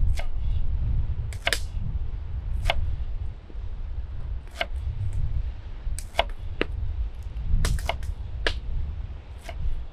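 Fire crackling: irregular sharp snaps and pops, roughly one a second, over a low rumble.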